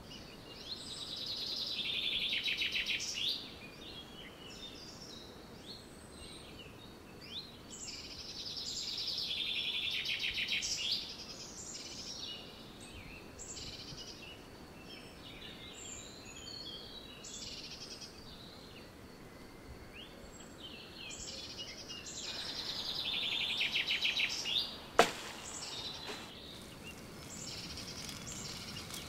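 A woodland songbird singing three loud, high trilling phrases of two or three seconds each, with quieter chirps between, over a faint steady background hiss. A single sharp crack near the end.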